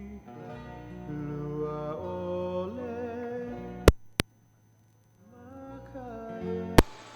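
Music with a singing voice over plucked guitar-like strings. Sharp clicks cut in about four seconds in, followed by about a second of silence, and another click comes near the end before a short hiss.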